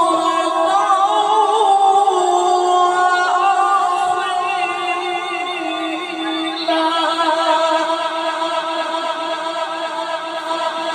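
A man reciting the Quran in a drawn-out melodic style, holding long ornamented notes with a wavering pitch. A new phrase begins about six and a half seconds in.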